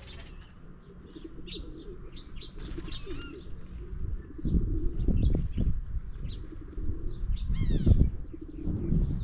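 House sparrows and house finches chirping at a feeder, with many short chirps and a quick run of falling notes about eight seconds in. Loud bursts of low fluttering come about five and eight seconds in.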